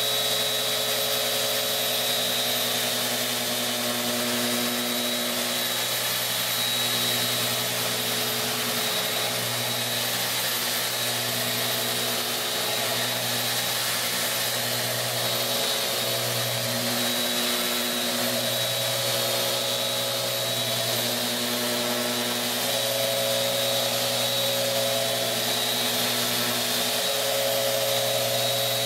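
Bosch GET 75-150 geared eccentric sander running steadily as it is pushed across a pine board, sanding off old paint. The tone shifts slightly from moment to moment as the sander moves and is pressed.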